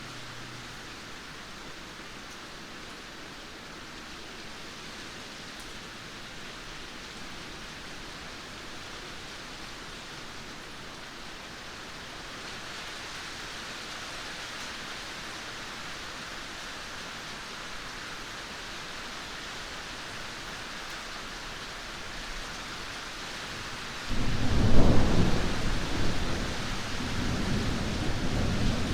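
Steady rain falling, a constant hiss. About 24 seconds in, thunder breaks in suddenly, loud and low, and keeps rumbling to the end.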